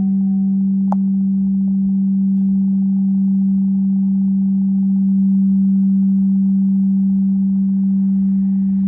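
Crystal singing bowl sounding one steady, pure low tone that holds without fading, with fainter overtones above it. There is a light tap about a second in.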